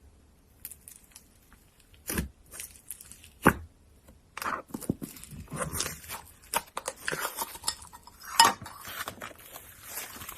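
Slime being pressed and mixed with things worked into it: a couple of sharp clicks in the first few seconds, then dense crackling from about halfway in, with one loud snap near the end.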